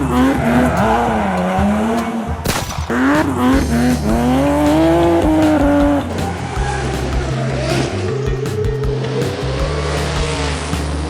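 Race car engine revving, its pitch rising and falling for about six seconds, with tyre squeal, over background music with steady low notes; after about six seconds the engine glides stop and a busier, noisier sound takes over.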